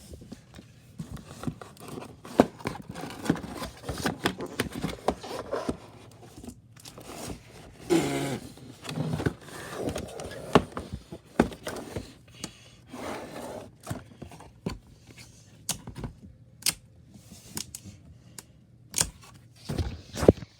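Headset box and packaging being handled and opened: an irregular string of clicks and knocks with short scrapes, and a brief squeak about eight seconds in.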